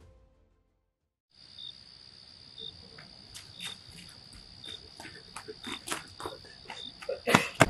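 Crickets chirring steadily at night, coming in about a second and a half in, with short higher chirps at intervals. Footsteps on a dirt path come closer and grow louder, with a loud thump near the end.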